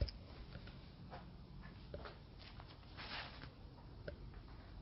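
Faint footsteps and handling noises: soft scattered clicks and scuffs over a low steady hum.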